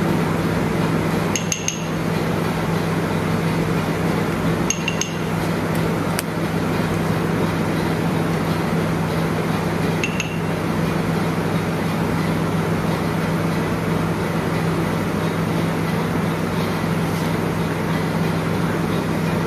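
A few light, ringing clinks of a utensil against a bowl, scattered through the first half, over a steady background hum.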